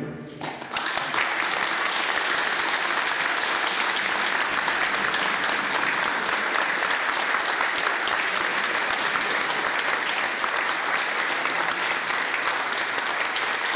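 The last ring of a concert band's closing chord fades out, and about half a second in an audience breaks into steady applause that holds to the end.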